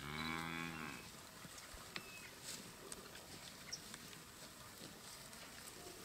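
A Cape buffalo giving a single low moo, about a second long, at the very start.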